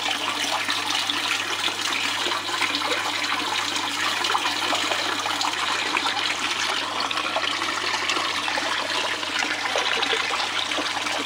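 Water running steadily in a thin trickling sheet across a miller table's mat, washing black sand off the table.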